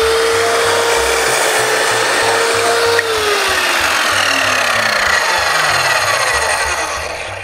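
Evolution R210 compound mitre saw running at full speed, its multi-purpose blade cutting an angled mitre through a piece of wood. About three seconds in the motor is switched off and the blade winds down, its whine falling steadily in pitch and fading.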